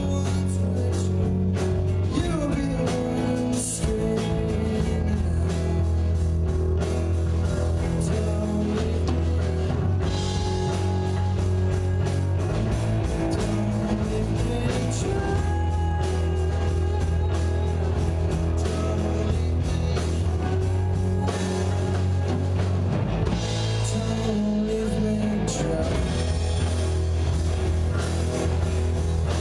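Live rock band playing: electric guitars with sustained, bending lead notes over bass guitar and a drum kit, loud and steady.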